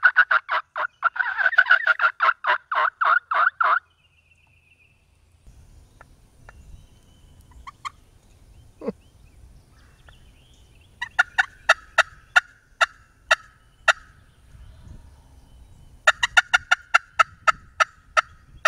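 Wild turkey gobbler gobbling: a loud, rapid rolling series at the start, then two fainter gobbles about 11 and 16 seconds in.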